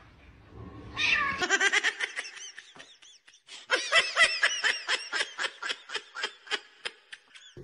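High-pitched giggling laughter in quick repeated ha-ha pulses, about five a second: one run starting about a second in, then a louder run from about the middle that tapers off toward the end.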